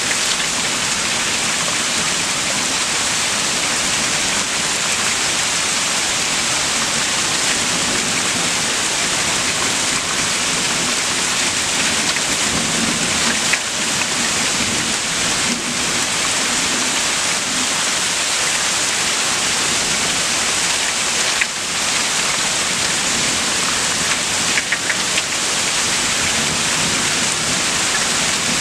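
Steady heavy rain during a thunderstorm, with a few sharp clicks partway through.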